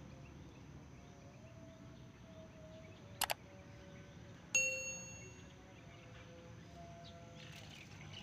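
A quick double click, then a single sharp metallic ding that rings and fades over about a second, over a faint steady background.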